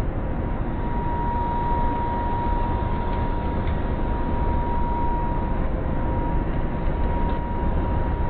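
Steady machine noise, a low rumble with a thin, steady high whine.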